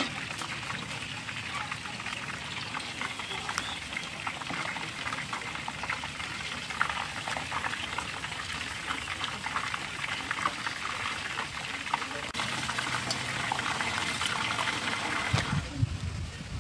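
Hot oil bubbling and crackling around a slab of skin-on pork deep-frying in a large aluminium pot, a dense, even crackle of small pops. The crackle stops about a second before the end.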